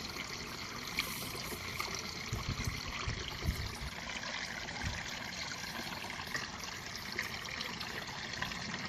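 Steady background noise like running or trickling water, with a few faint clicks.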